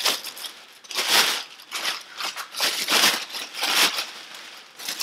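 Thin clear plastic packaging bag crinkling and rustling in several short bursts as it is pulled and shaken off a scooter's handlebars.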